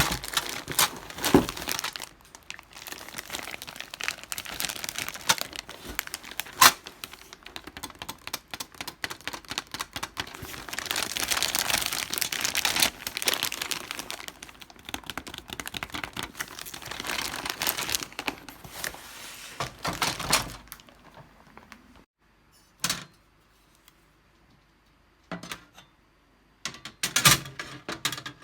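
Packaging being unwrapped: continuous crinkling and tearing of wrapping for about twenty seconds, then it stops and a few sharp separate clicks and knocks follow.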